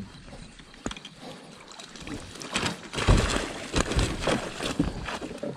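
Hooked snakehead thrashing at the surface beside a kayak, throwing up water in irregular splashes that grow loud from about halfway through. A knock at the start and another about a second in.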